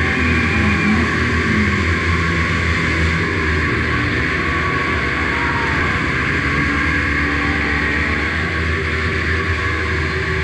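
Several 110cc four-stroke pit bike engines running together in a continuous loud drone, their pitch wavering slightly with small throttle changes.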